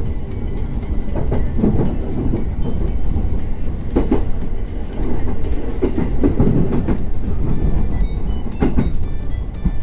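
A train running on rails: a loud, steady low rumble with a few sharp clacks of wheels over rail joints.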